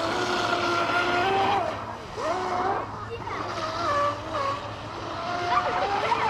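Radio-controlled speedboat's electric motor running at speed with a high whine, steady at first, then swooping up and down in pitch several times as the throttle is worked, over a hiss of water spray.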